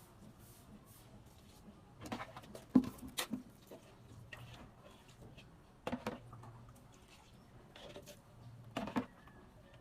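Light knocks and clicks of small objects being handled, in three short clusters about two, six and nine seconds in, over a faint low hum.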